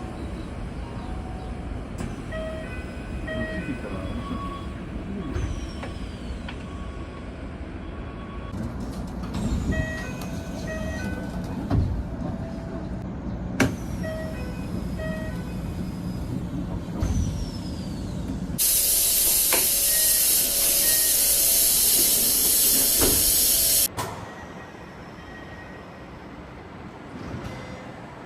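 Keikyu train door chime: a short sequence of electronic tones, sounding several times over the rumble of the train. Past the middle comes a loud hiss of compressed air lasting about five seconds that cuts off suddenly.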